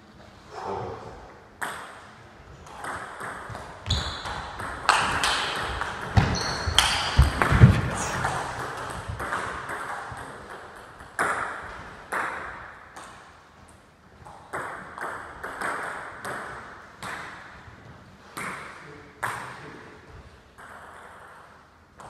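Table tennis ball knocking back and forth between rackets and table in quick sharp clicks during rallies, with pauses between points.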